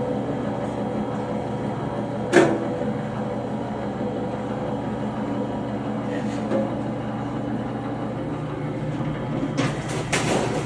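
Pittsburgh lock-forming machine running steadily with a motor hum while its rollers form the seam along a sheet-metal blank, with a sharp metallic clank about two seconds in and a burst of sheet-metal rattle near the end.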